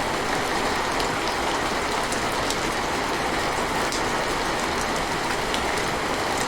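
Steady rain falling, an even hiss with a few sharp ticks on top.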